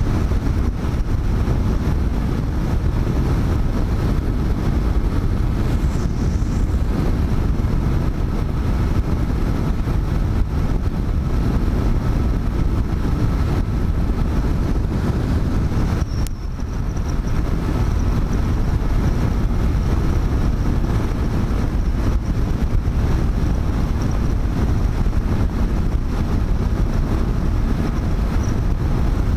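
Motorcycle at motorway speed: steady wind rush on the microphone mixed with engine and tyre noise, with one brief dip in level about 16 seconds in.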